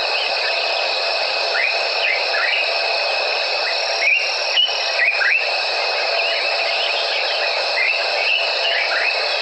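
Evening bush chorus: a dense, steady drone of crickets and other insects with a constant high whine, overlaid by short calls that sweep quickly upward, about ten of them coming at irregular intervals, some in quick pairs.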